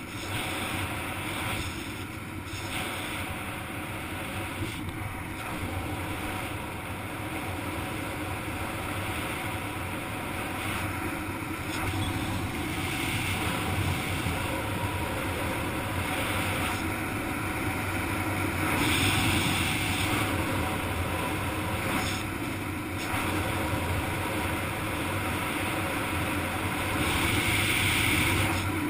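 Steady rush of wind buffeting the helmet-camera microphone as a skydiver flies under an open canopy, swelling louder a few times.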